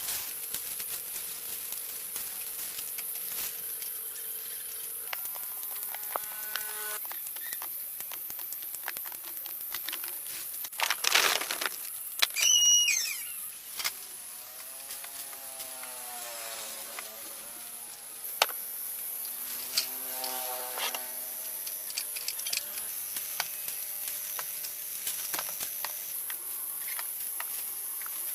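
Outdoor rural ambience: a steady high-pitched insect drone, with scattered animal and bird calls. About halfway through there is a brief loud rustle, then a sharp chirping call.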